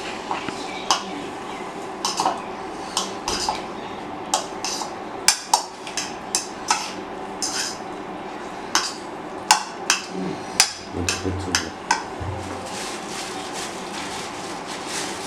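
Kitchen utensils and dishes being handled: irregular sharp knocks and clinks, several a second at times, over a steady background hum. The knocks thin out and stop a few seconds before the end.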